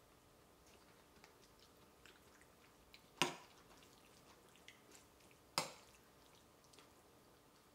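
A metal spoon clinks sharply twice against a ceramic bowl while scooping a soft, wet tofu and rice dish, with faint small ticks and scrapes in between.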